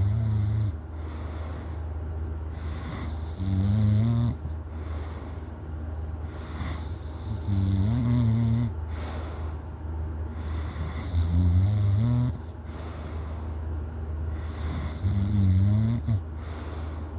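A person snoring in a slow, regular rhythm: a loud, low-pitched snore about every four seconds, five in all, over a steady low hum.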